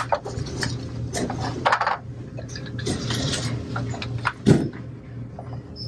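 Small metal clinks and rustling as screws and a metal mounting bracket are handled against a ceiling tile, with a louder knock about four and a half seconds in, over a steady low hum.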